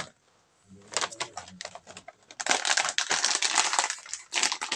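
Plastic snack bag crinkling and rustling as a hand rummages inside it for pieces, a dense crackle that starts about a second in and grows thicker about halfway through.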